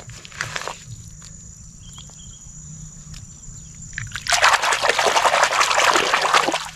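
A brief scrape of a hand in wet gravel. Then, from about four seconds in, a loud splashing and sloshing of shallow stream water as a hand swishes a plastic toy animal to wash it; the splashing stops just before the end.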